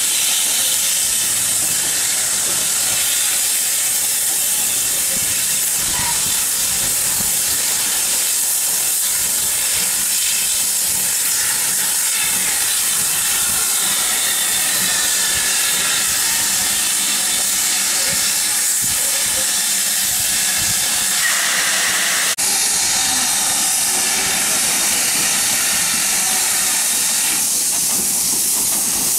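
Steady loud hiss of steam from a steam locomotive. The sound changes abruptly about two-thirds of the way through, and the hiss carries on after it.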